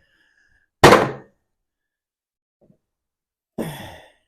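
One loud thunk about a second in, dying away quickly, then a shorter, noisier clatter near the end.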